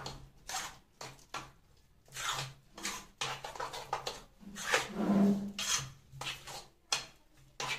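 Thick semolina-and-yoghurt batter with chopped vegetables being mixed in a steel bowl: irregular wet stirring strokes, with scraping and light knocks against the bowl.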